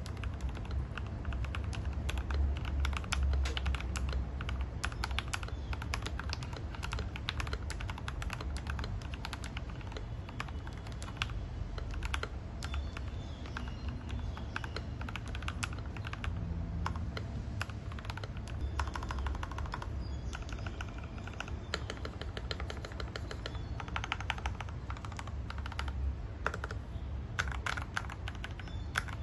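Typing on a 68% mechanical keyboard with Gateron Milky Yellow linear switches: a continuous stream of fast keystrokes clacking.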